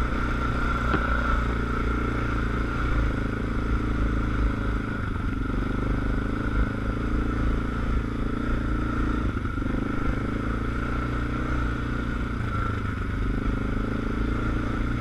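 ATV engine running steadily while riding along, its pitch shifting a little with the throttle now and then.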